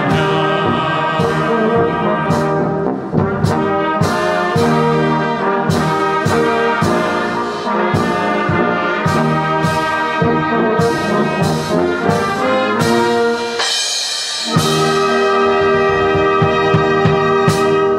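Brass band of trumpets, trombones, horns and tubas, with flutes, playing a hymn tune in full chords. After a brief break about fourteen seconds in, the band closes on one long held final chord.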